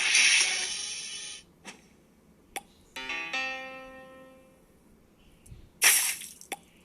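Music with keyboard: a noisy hit that fades, then a held chord slowly dying away, and another short noisy hit near the end.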